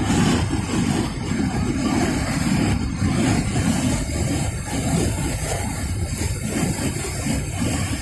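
Whitewater rapids of the Nile rushing over rocks: a loud, steady, deep rush of churning water.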